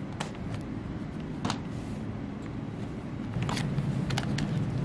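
A few small, sharp plastic clicks and taps from a plastic pry tool working at the battery and its connector inside an opened Dell XPS 13 laptop, over a steady low background hum.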